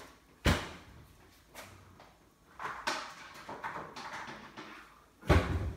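Kitchen handling sounds: a sharp knock about half a second in, some lighter clattering around the middle, and a heavier thud near the end, like hard objects being set down on a counter or a cupboard shutting.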